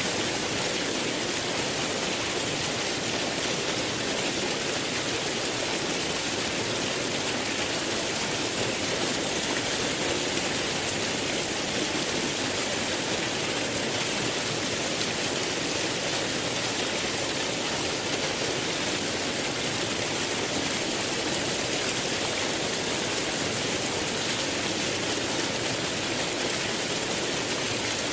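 Rushing water, a steady unbroken hiss without change.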